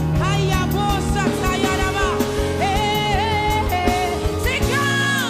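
Live gospel band: a singer holding wavering sung notes over keyboard, guitar and a steady drum beat.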